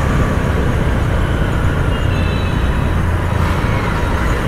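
Steady running noise of a 100 cc Hero Splendor single-cylinder motorcycle being ridden through traffic, heavy at the low end.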